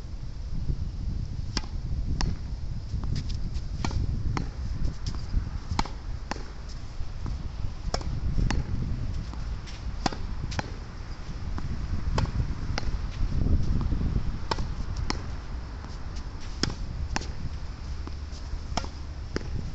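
Tennis ball repeatedly struck against a practice wall: sharp pops of racket hits, wall strikes and court bounces, several a second, with a steady low rumble of strong wind on the microphone underneath.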